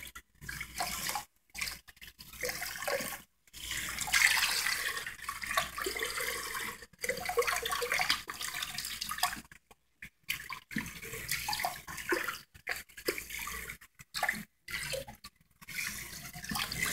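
Kitchen sink sprayer spraying water over a small wet dog, rinsing the soap out of her coat. The water noise breaks off briefly again and again.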